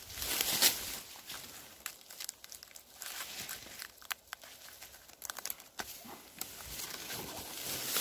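Irregular dry rustling, crackling and small clicks of leaf litter, pine needles and flaky pine bark being handled and trodden on while a small mushroom is pried off a dead pine trunk. A louder rustle comes about half a second in.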